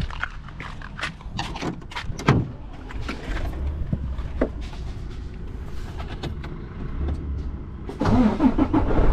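Scattered clicks and knocks of small parts being handled, over a low steady rumble. About eight seconds in, a louder vehicle engine sound sets in and keeps running.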